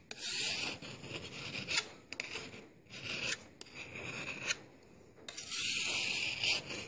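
A flat single-cut chainsaw (raker) file rasping along the edge bevel of a Tramontina Bolo machete, its teeth cutting the steel. About six strokes, each under a second, with short pauses between.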